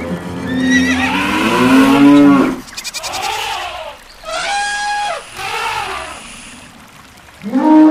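A series of animal calls one after another: a long pitched call for the first two and a half seconds, then shorter, higher calls around the middle, a quieter stretch near the end, and a new loud call starting right at the end.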